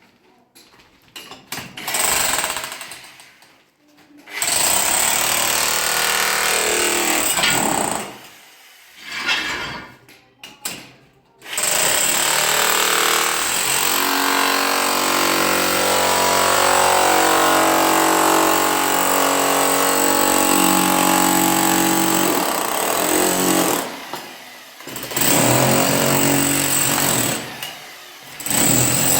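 Loud electric power tool run in repeated bursts that start and stop abruptly, the longest about twelve seconds from about a third of the way in.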